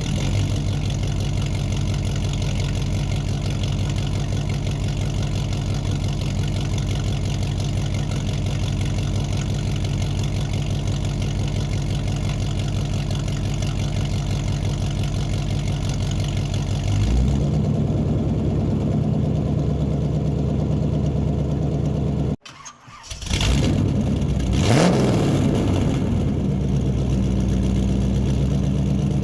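A vehicle engine runs steadily and changes note about 17 seconds in. It cuts out abruptly for about a second around 22 seconds in, then starts again with a short rev.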